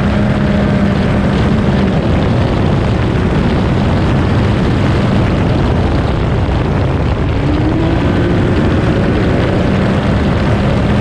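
Side-by-side rally car's engine running hard at speed, heard from inside the open cockpit over a dense rush of tyre and gravel noise. The engine note holds steady, drops back, then climbs again about eight seconds in.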